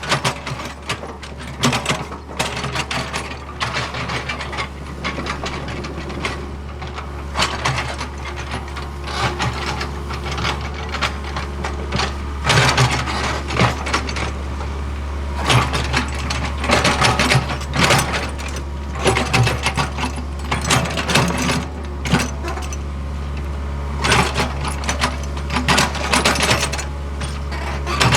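Hitachi ZAXIS75UR compact excavator's diesel engine running with a steady low hum under loud, irregular clanking and scraping as the machine works the ground.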